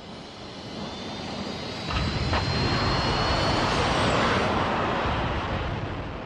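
Rocket launch sound effect: a rushing jet-like engine noise that swells, is loudest from about two seconds in to five, then fades away, with a thin high whistle over the first half and two sharp clicks as it reaches full strength.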